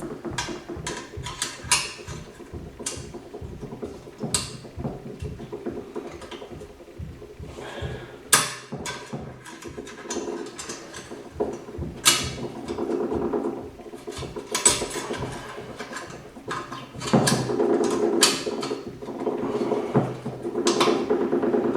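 Irregular metallic clicks, taps and knocks of Ford 5R55S transmission parts being handled and worked into place. A pitched sound comes and goes in the second half.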